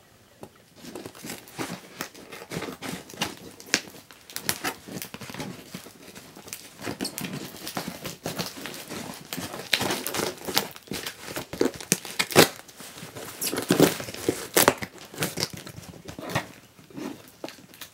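Plastic packing tape on a cardboard shipping box being slit and torn open, with irregular crackling and ripping and the cardboard rubbing and scraping under the hands.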